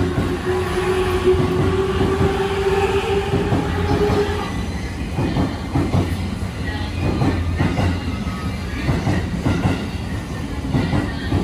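Electric limited-express train gathering speed past the platform: its traction motors whine with a slowly rising pitch over a low rumble for the first few seconds. The whine then fades into the clatter of wheels over rail joints and points, with many quick clacks.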